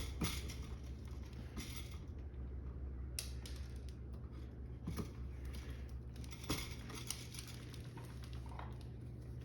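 Pliers and stiff copper electrical wire being handled: a sharp snip right at the start as the wire ends are nipped off, then scattered light clicks and rustles.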